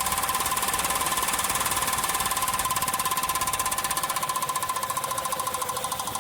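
Fast, evenly repeating rattle from a Honda Fit's turning drive axle on a lift, slowing and fading over the last couple of seconds. The head of a nylon zip tie, fitted in place of the original CV-joint boot clamp, strikes a loose heat shield at every turn of the axle: the cause of the car's noise at 60 to 80 km/h.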